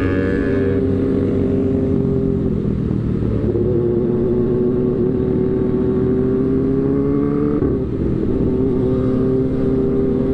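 Motorcycle engine running steadily under way, its pitch holding level with a brief dip near 8 seconds in.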